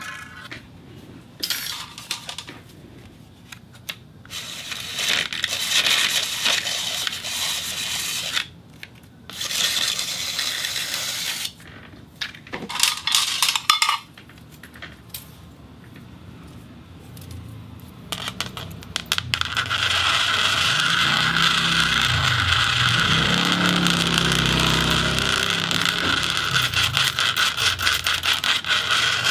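Various materials rubbed against a spinning turntable, scraping and rasping in short stretches that start and stop, some with a metallic ring. In the last third this settles into a steady scraping with a fast, even ticking from each turn.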